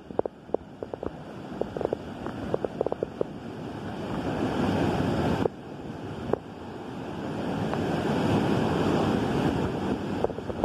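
Muddy floodwater rushing and churning in a fast torrent. There is a cluster of sharp splashes in the first few seconds, and a sudden dip about halfway through. After that the rush builds louder.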